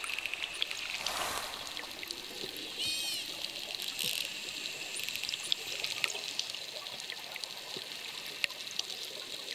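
Bottlenose dolphins underwater: a steady watery hiss with scattered sharp clicks, typical of dolphins foraging by echolocation. About three seconds in there is a brief whistle that rises and falls.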